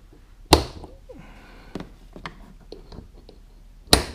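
Short bungee cords hooked into plastic loops on a kayak's deck snapping tight against a plastic storage box: two sharp snaps about three and a half seconds apart, with light clicks and handling between.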